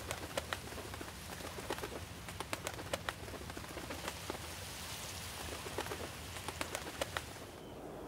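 Sea water splashing around common eiders as a drake mounts a female at the surface: a steady wash with many small, sharp splashes and patters, like rain on water. It drops to a softer hush near the end.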